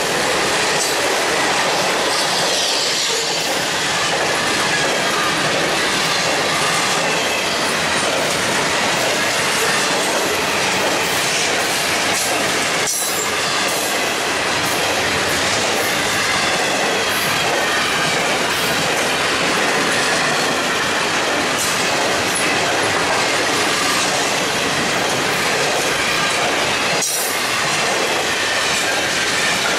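Florida East Coast Railway freight train of autorack and double-stack container cars rolling past at close range: a steady, loud rattle and rumble of steel wheels on rail, with a faint wavering wheel squeal. Two sharp knocks stand out, one about halfway through and one near the end.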